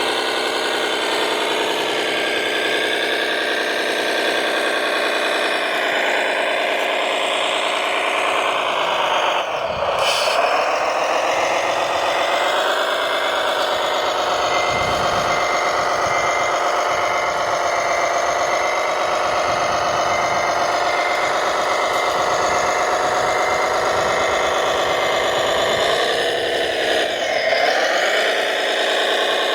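Radio-controlled construction machine's motor whining steadily, its pitch dipping briefly twice as it takes load, once about a third of the way in and once near the end.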